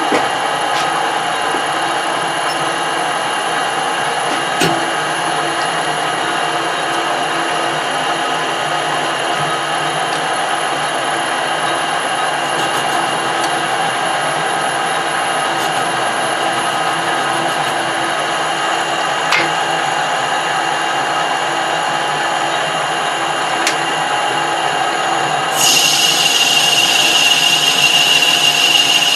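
Metal lathe running steadily while turning a piece of cast iron, with a few faint clicks. About 26 seconds in, a louder, brighter high-pitched whine cuts in suddenly.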